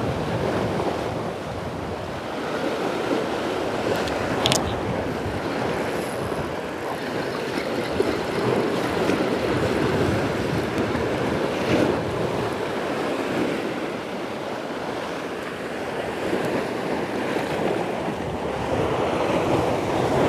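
Sea waves surging and washing against shore rocks, with wind buffeting the microphone. A short sharp click about four seconds in.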